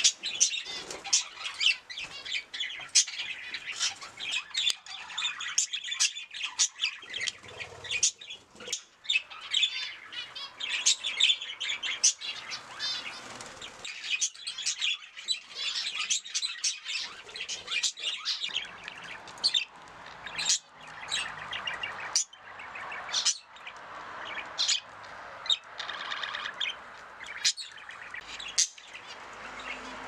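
Budgerigars chattering and warbling continuously, with many sharp clicks and taps scattered throughout.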